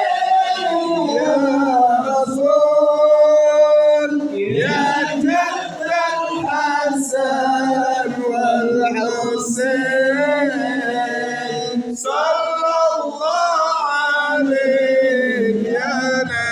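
Sholawat, Arabic devotional song in praise of the Prophet, sung with long, drawn-out ornamented notes that waver and glide in pitch.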